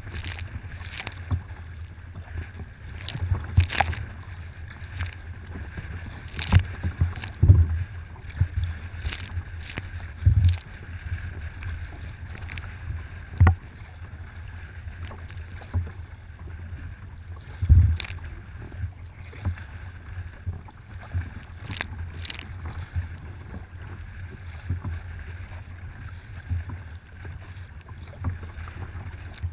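Choppy waves slapping and splashing against a kayak hull at irregular intervals, with several heavier thumps, over a steady low rumble of wind on the microphone.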